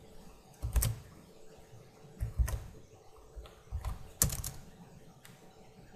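Computer keyboard keys tapped about six times, each a separate click with gaps of a second or so between them.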